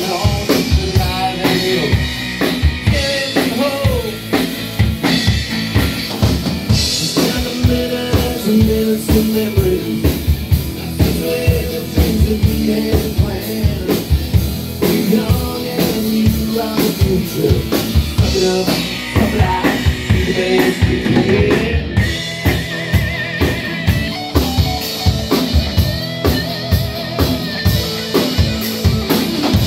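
Live rock band playing an instrumental passage: electric guitars, bass guitar and drum kit keeping a steady beat. A lead line holds a wavering high note about two-thirds of the way through.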